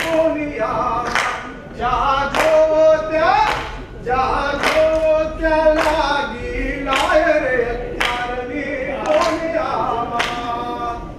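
Several voices singing a Gujarati song together, unaccompanied, with long held notes and a sharp beat about once a second.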